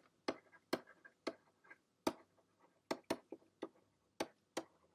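Stylus tapping and clicking on a drawing tablet as words are handwritten: about ten short, sharp clicks at irregular spacing.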